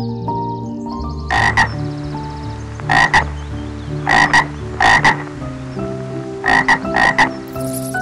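An animal calling in short, loud calls that come in quick pairs, about six pairs spaced a second or so apart, over background music with sustained notes.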